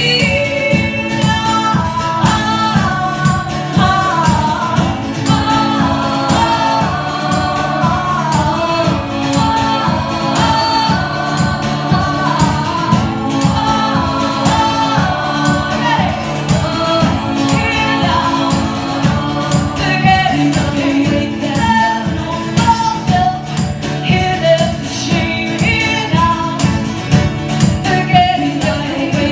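Live energetic rock/pop song: women's voices singing in harmony over acoustic guitar, with a steady beat.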